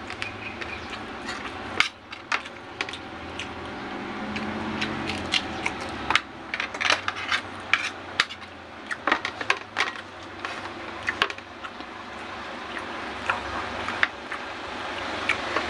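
Eating rice and dried salted fish by hand from a plate: irregular sharp clicks and taps of fingers, food and chewing, coming thick in the middle. A steady background hum grows louder near the end.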